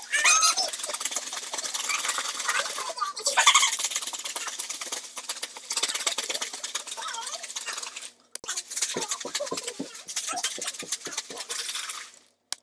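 Ice and salt rattling and crunching inside a plastic zipper bag shaken hard and fast, with the bag crinkling. The shaking breaks off briefly about eight seconds in. The shaking churns the sealed inner bag of milk, cream, sugar and vanilla into homemade ice cream.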